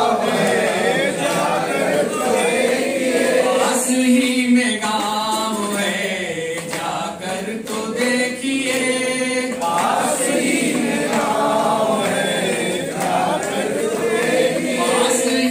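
A group of voices singing a song together in chorus.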